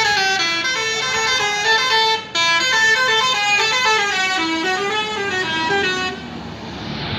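Indonesian bus 'telolet' musical air horn playing a melody of quick stepped notes, several tones sounding together, with a short break about two seconds in. It stops about six seconds in, leaving a rushing vehicle noise.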